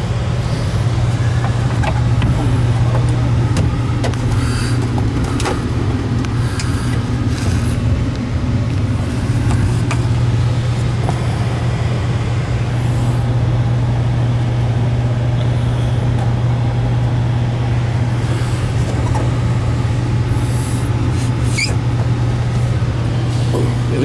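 Gas furnace running: a steady, unchanging low motor hum with an even rush of air over it.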